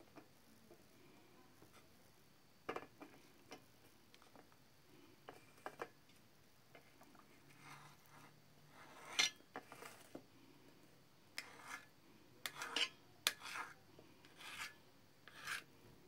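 Knife slicing soft cooked sweet potato on an enamel plate: scattered short scrapes and taps of the blade on the plate, coming more often in the second half.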